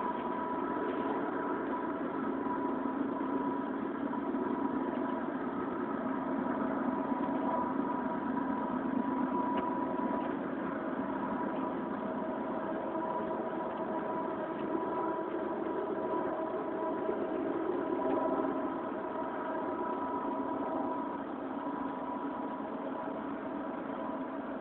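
A steady droning hum with several held tones, unexplained by the listener, who hears it coming from the sky right above the house; it eases off slightly near the end.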